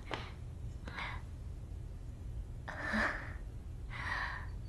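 A person breathing out softly: three short breathy exhalations about a second and a half apart, the middle one the longest and loudest, over a low steady hum.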